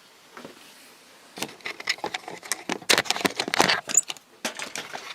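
Rapid metallic clattering and rattling of a window air conditioner's sheet-metal cabinet and parts being handled. It starts about a second and a half in, is busiest around three to four seconds in, then thins out.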